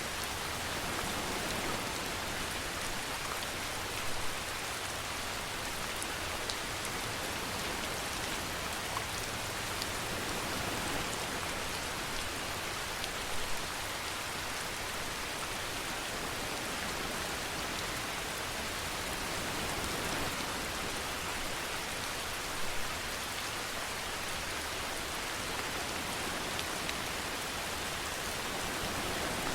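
Steady rainfall: an even, dense hiss of rain on surfaces, with a few louder single drop hits scattered through it.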